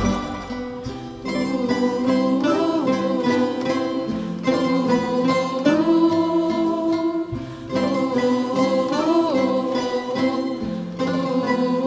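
Tamburica ensemble of plucked folk string instruments with double bass playing a slow, quiet passage, the melody in long held notes that bend in pitch.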